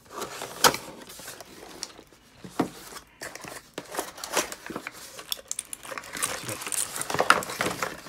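Cardboard box being opened and a keyboard's clear plastic wrapping crinkling as it is handled and lifted, with scattered taps and rustles that grow busier near the end.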